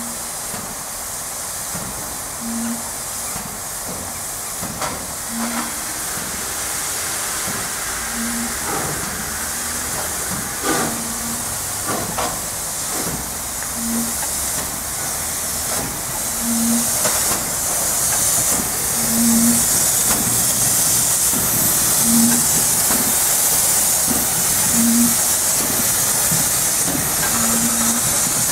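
Ol49 class steam locomotive hissing steam, the hiss growing louder about two-thirds of the way in. Under it, a short low tone repeats about every three seconds.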